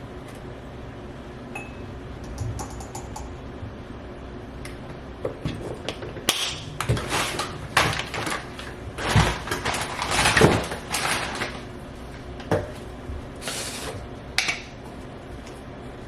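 Household handling noises: scattered clicks, then a run of clatters, knocks and rustling bursts through the middle, with two more near the end.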